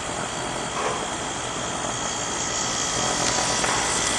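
Rheem 3-ton package heat pump running steadily, its compressor and outdoor fan making an even hum and whoosh.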